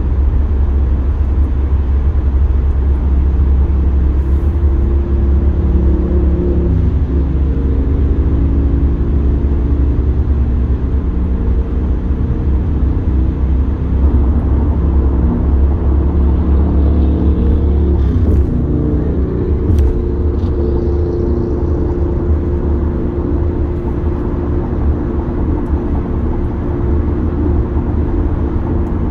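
Steady road noise heard inside a car's cabin at highway speed: a strong low tyre-and-engine rumble with a hum that shifts slightly in pitch now and then. Two faint clicks come past the middle.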